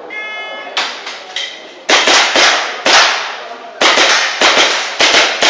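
Electronic shot-timer start beep, followed after about two seconds by a rapid string of airsoft pistol shots with sharp cracks of BBs striking targets, fired in quick groups of two or three.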